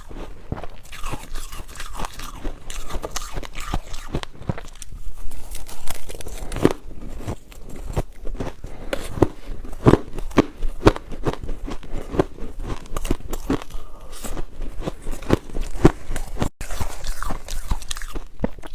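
A person biting and chewing ice cubes: a run of sharp, irregular crunches as the ice cracks between the teeth.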